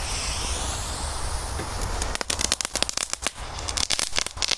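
Korsar-4 firecracker with an effect going off. It hisses for about two seconds, the hiss dipping and then rising in pitch, then breaks into a rapid, irregular run of sharp crackling pops.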